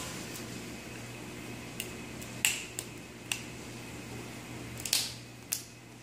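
Harlequin macaw cracking and crunching a nut-like treat with its beak: about seven short, sharp cracks, the loudest about two and a half seconds in and again near five seconds. A steady low hum runs underneath.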